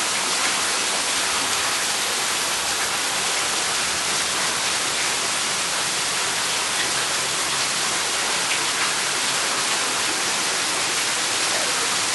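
Heavy monsoon thunderstorm rain pouring down steadily, a dense unbroken hiss of rain.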